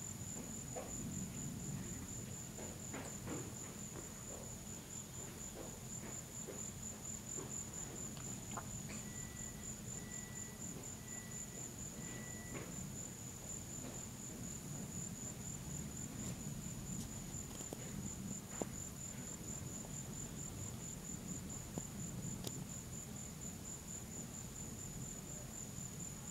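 Crickets trilling steadily at night, a fast high-pitched pulsing without a break, over a low steady hum.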